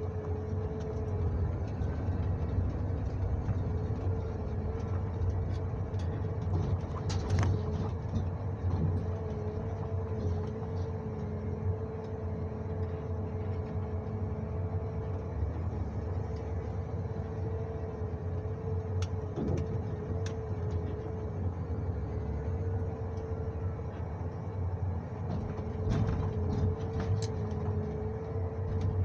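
John Deere 1910G forwarder's diesel engine and hydraulics running steadily, heard from inside the cab: a low rumble with a steady, slightly wavering whine. A few sharp knocks come through at intervals.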